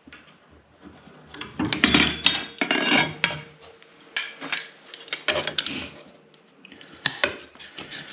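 Copper pipe being handled and worked by hand: irregular metal scraping and clinking, busiest between about two and three seconds in, with a single sharp knock near the end.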